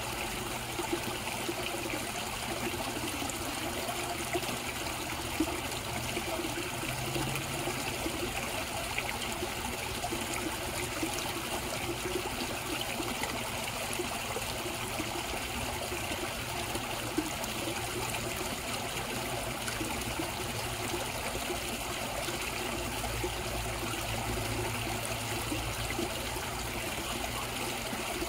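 Koi pond water running steadily, a continuous trickle and splash of flowing water.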